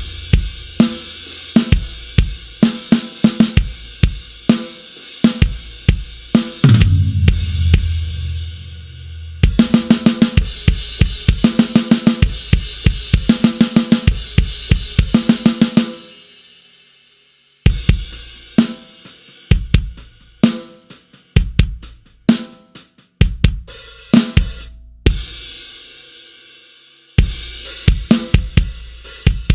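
Sampled rock drum kit from the Blasting Room Signature Series Drums Kontakt library playing grooves and fills: kick, snare, hi-hat and cymbals. The playing stops twice, leaving the kit ringing out before it starts again, with a fast roll of hits just after the first stop.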